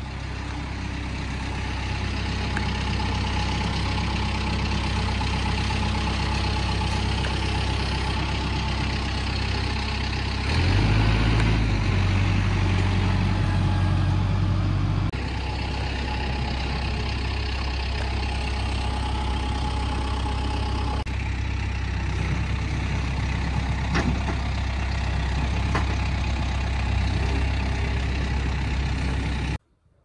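An engine idling steadily. Its pitch and loudness step up about a third of the way in and drop back again about halfway through.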